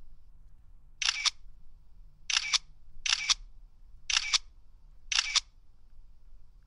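Camera shutter firing five single shots at uneven intervals about a second apart. Each shot is a quick double click. A faint low hum runs underneath.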